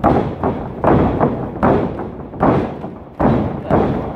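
Wrestling stomps on the ring canvas: feet slamming down on the ring floor in a steady series of heavy thuds, five in a row about every 0.8 seconds, each with a short boom from the ring.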